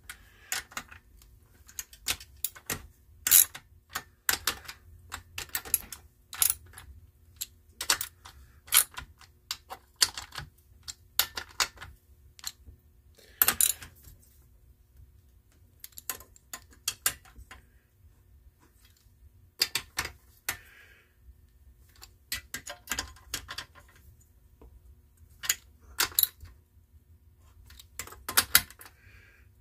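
Socket ratchet clicking in short runs as the head bolts of a small lawnmower engine's aluminum cylinder head are snugged down, with brief pauses between bolts.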